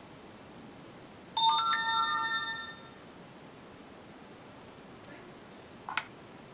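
Short electronic chime from a smartphone's speaker: a chord of bright steady tones that starts suddenly about a second in and fades out over about a second and a half. A single sharp click comes near the end.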